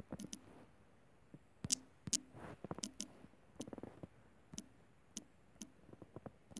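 Light, irregular clicks and taps of fingers typing on a smartphone's on-screen keyboard, about a dozen in a few seconds.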